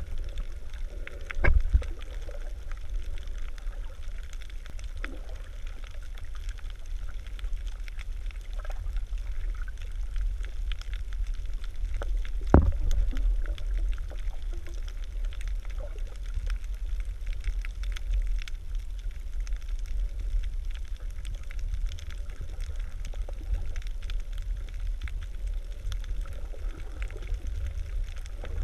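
Muffled underwater sound picked up by a GoPro Hero 3 Black in its waterproof housing: a steady low rumble of moving water, with two sharp knocks, one about a second and a half in and one about twelve and a half seconds in.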